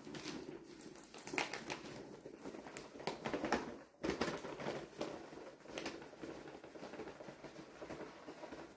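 Paper sack of flour rustling and crinkling as it is tipped and shaken, with flour pouring and sifting into a plastic bucket. The rustling is irregular, with scattered small crackles and a brief lull about four seconds in.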